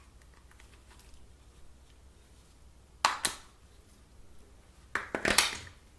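Handling of a smartphone's plastic parts: two short sharp clicks about three seconds in, then a brief cluster of clicks and scraping about five seconds in, over quiet room tone.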